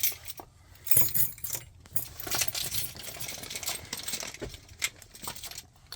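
A bunch of metal keys jangling and clinking in the hands, in short irregular bursts, while the matching key for a doorknob lock cylinder is sought.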